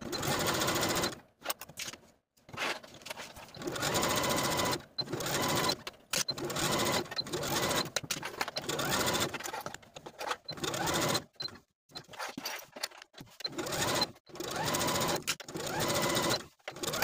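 Computerized home sewing machine stitching a skirt side seam and around a pocket. It runs in repeated bursts of one to two seconds with short stops in between, as the seam is pivoted and the fabric repositioned.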